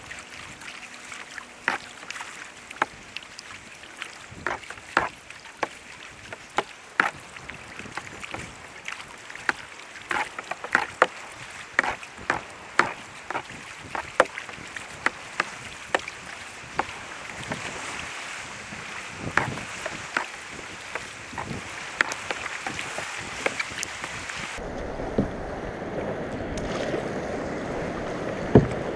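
Kayak paddle strokes in choppy sea water: the blades dip and splash, and water drips and slaps against the plastic hull in many short splashes less than a second apart, over a steady wash with some wind on the microphone. About four seconds before the end the sound turns to a duller, fuller wash of sea water.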